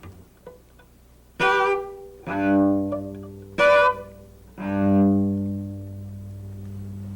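Cello bowing: a short note about a second and a half in, then a longer held double stop; the same pair comes again, and the second held double stop fades out slowly near the end.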